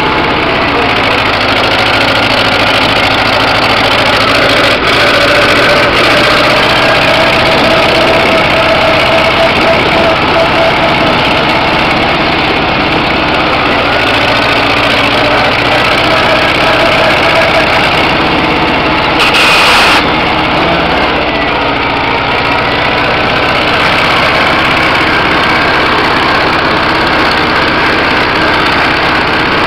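1956 Farmall Cub's four-cylinder flathead engine running steadily as the tractor is driven, heard close from the seat. A brief hiss cuts in for about a second roughly two-thirds of the way through.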